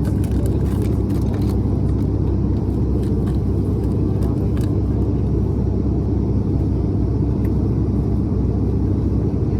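Steady low drone of an ATR 72's turboprop engines and propellers, heard inside the cabin during the descent for landing, with a few faint clicks in the first few seconds.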